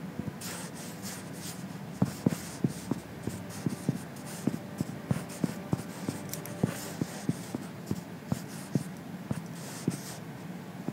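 Fingertips tapping out a short phrase on an iPad's on-screen glass keyboard. The taps are light and irregular, about two or three a second, and begin about two seconds in.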